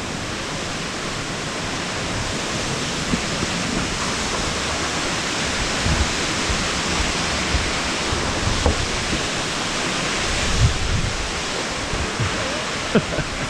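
Waterfall rushing in a steady roar of falling water, growing slowly louder, with a few soft low thumps about midway and near the end.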